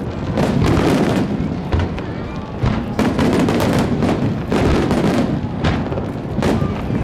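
Aerial fireworks bursting in quick succession: a string of booms and cracks, about one or two a second, each trailing off in an echoing rumble.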